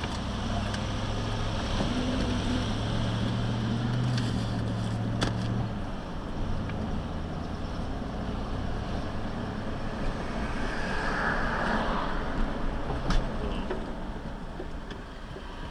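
Car driving, heard from inside the cabin: a steady low engine hum over road and tyre noise, with a couple of sharp clicks or knocks.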